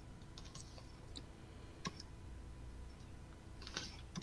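A few faint, scattered clicks over a low steady hum, with a small cluster of clicks near the end.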